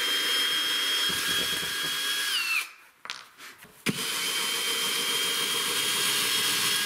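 Electric drill-driver backing screws out of a plywood floor sheet: a steady high whine that drops in pitch and stops about two and a half seconds in. After a short pause it starts again about a second later and runs steadily.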